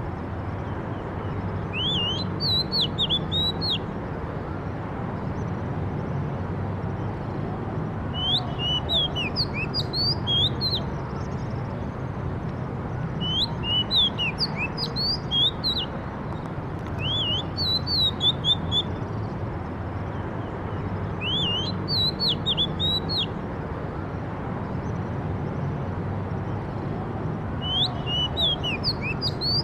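A songbird singing short phrases of quick, sliding whistled notes, about six phrases repeated every few seconds, over a steady low background rumble.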